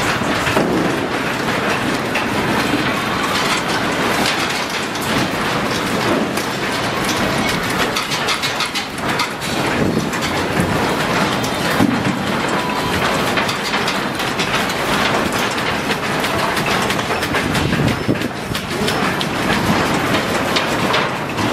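Steel station roof and platform fittings rattling and clattering without letup as an earthquake shakes the station.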